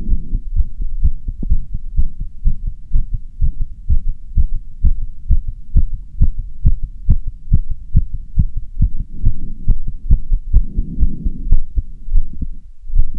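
A person's heartbeat, fast and regular, pounding after half an hour of running stairs. It is picked up close through a phone microphone, with a swell of heavy breathing near the end.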